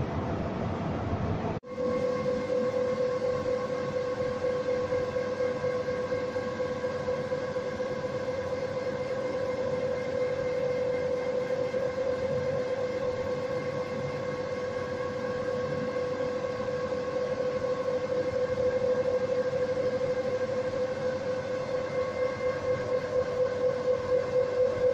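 Hydroelectric turbine-generator set running: a steady high whine with a few overtones over a mechanical rumble. Near the end it takes on a pulsing beat of about two to three a second. Just under two seconds in, a deeper, noisier machine rumble gives way abruptly to the whine.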